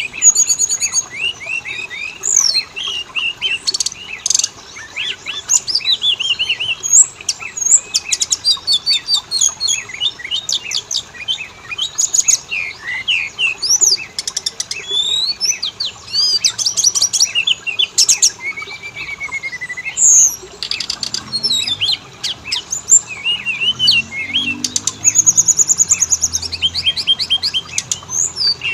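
Oriental magpie-robin (kacer) song: a continuous, rich run of varied whistles, fast trills and sharp clicky notes.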